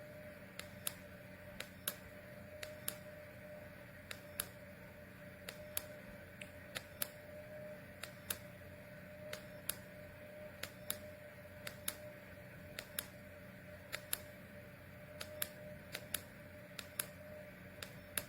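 Faint, irregular sharp clicks, about two or three a second, over a steady hum.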